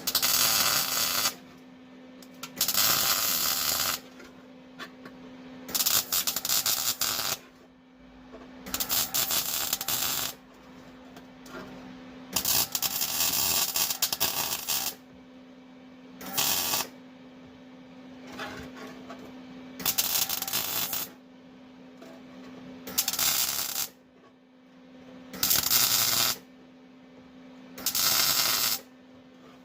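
Welder stitch-welding a sheet-metal floor patch: about ten short bursts of crackling arc, each a second or two long with brief pauses between, over a steady low hum.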